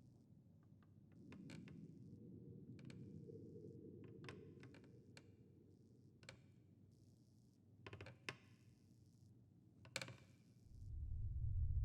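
Faint, scattered clicks and taps at irregular intervals, a few sharper ones about eight and ten seconds in. Near the end a deep low rumble swells up.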